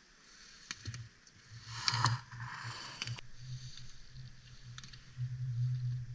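Slalom ski edges scraping over hard-packed snow, swelling to a loud hiss about two seconds in, with a few sharp clacks, the sound of slalom gates being struck. A low fluttering rumble sets in after the first second and grows louder near the end.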